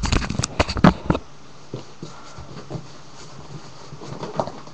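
Handling noise as the camera is picked up and set down: a burst of knocks and rubbing in the first second, then only faint scattered rustles.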